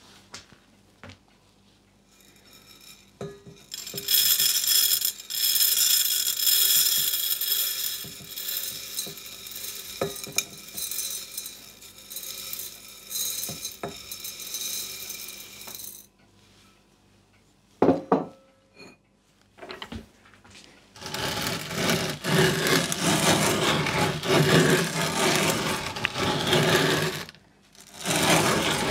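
Wheat berries poured rattling into the metal hopper of a hand-cranked grain mill, with metal clinks and knocks. The rattle comes in two long stretches, broken by a quieter spell with a few sharp knocks.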